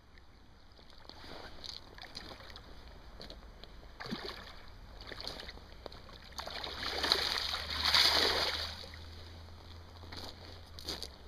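A hooked salmon splashing and thrashing at the surface in shallow water as it is drawn in to the bank, with a few small splashes, then a louder burst of splashing about seven to eight seconds in.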